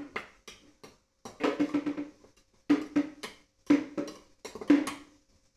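A steel spoon clinks against a small stainless steel bowl as chopped salad is stirred. The clinks come in short bursts roughly once a second, and the bowl rings with each.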